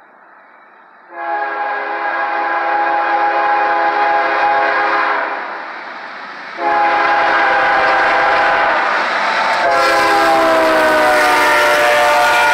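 Horn of a CSX GE ES40DC freight locomotive sounding two long blasts as the train approaches. The second blast is held to the end and drops in pitch as the locomotive passes close by, with the rumble of the engine and wheels underneath.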